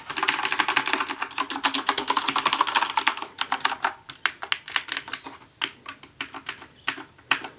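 Typing on a Thermaltake Meka G-Unit mechanical keyboard with Cherry MX Black linear switches: a fast, dense clatter of keystrokes that thins out to sparser separate presses about halfway through.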